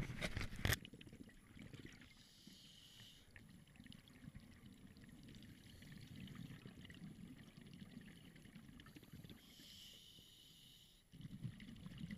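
Scuba breathing heard underwater through a camera housing: the hiss of a regulator's inhalation twice, several seconds apart, between low burbling of exhaled bubbles. A few sharp knocks in the first second.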